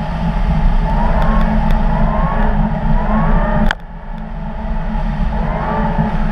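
Audi car driving fast on packed snow: a steady low rumble of wind and tyre noise, with the engine note rising in several short pulls. A sharp click a little past the middle is followed by a brief drop in the sound.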